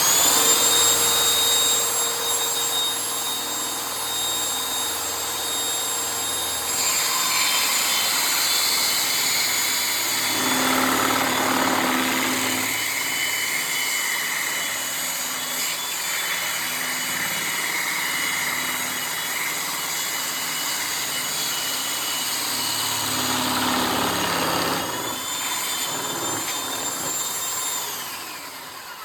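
A power-tool motor spins the wooden spindle in the table-saw lathe jig, a steady high whine that starts suddenly. From about seven seconds in, sandpaper rubs against the turning wood. The motor winds down near the end.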